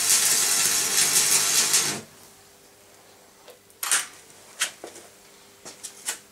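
Electric arc welding crackling and hissing, cutting off suddenly about two seconds in. A few sharp metallic clicks and knocks follow.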